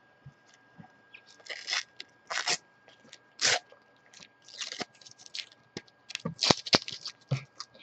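Panini FIFA 365 sticker packet being picked up and torn open by hand: the foil wrapper crinkles in short separate bursts, then breaks into a quick run of crackles near the end as it is ripped open.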